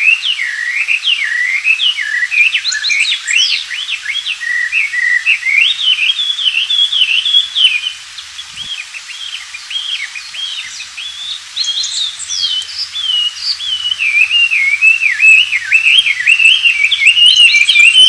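Hwamei (Chinese hwamei laughingthrush) singing a long, unbroken run of rapid, varied whistled phrases that swoop up and down in pitch, a little softer for a few seconds about halfway through.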